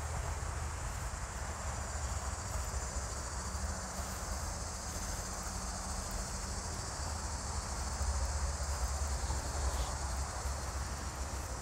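Steady chorus of crickets, a continuous high-pitched trill, over a low rumble.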